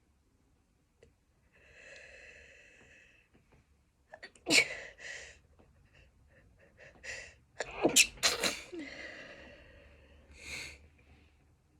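A person sneezing: a long breathy intake, then a sharp sneeze about four and a half seconds in, and a second, louder sneeze about eight seconds in. Each sneeze is followed by a quick smaller burst, with gasping breaths between them.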